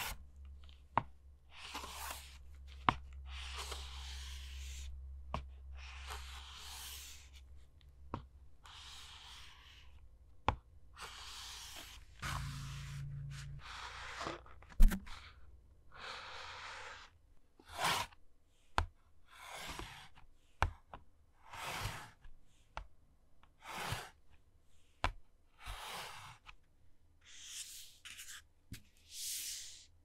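A run of short sliding sound effects: more than a dozen brief noisy swishes, each under a second, like something sliding across a surface, with sharp clicks between them. A low hum sits under the first several seconds.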